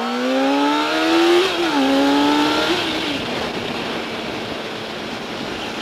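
Honda CBR600RR inline-four engine accelerating hard through the gears, its note climbing steeply, dropping slightly at an upshift about a second and a half in, climbing again and dropping at another shift near three seconds. It then settles into a steady cruise with wind rushing over the helmet microphone.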